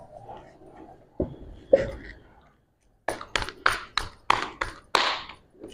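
Roti dough slapped back and forth between the palms to flatten it: a quick run of about eight sharp slaps over two seconds, after two duller thuds about a second in.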